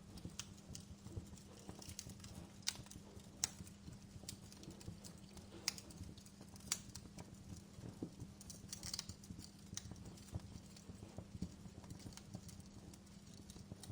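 Wood fire crackling in a fireplace: irregular sharp pops and snaps, a few louder ones among many small crackles, over a low steady rumble.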